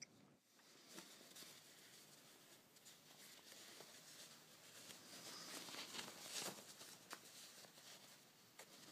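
Faint rustling of fabric as a skirt waistband end is pinched and turned right side out by hand, with a few light clicks. It is a little louder a bit past the middle.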